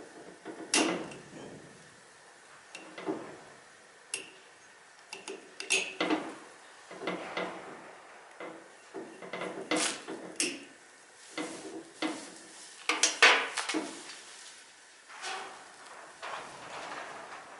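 Irregular clinks, clatters and knocks of hard metal parts and tools being handled, some strikes sharper and louder than others.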